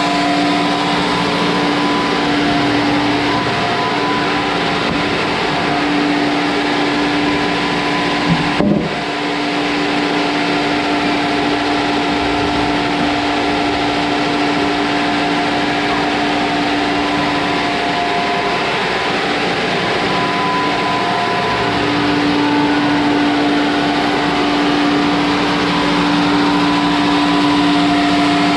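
Sawmill machinery working Japanese cedar, running steadily with a constant motor hum over a loud even noise, and one short knock about nine seconds in.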